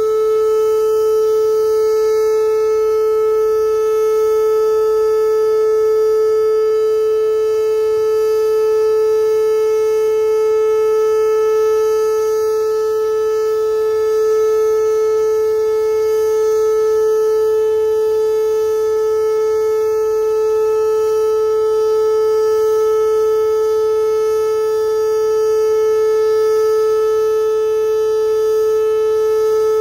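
Pancake-style outdoor tornado warning siren sounding a continuous steady tone during its monthly test, held at one pitch, with small slow swells in loudness.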